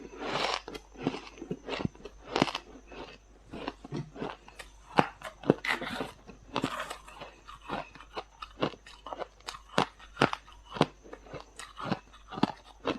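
Freezer frost being bitten and chewed: a dense, irregular run of crisp crunches, several a second, with a few longer, noisier bites.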